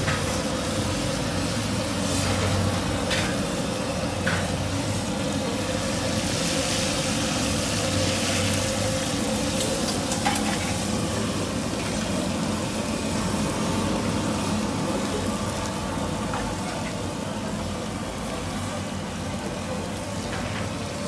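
Samosas deep-frying in a large karahi of hot oil, a steady sizzle.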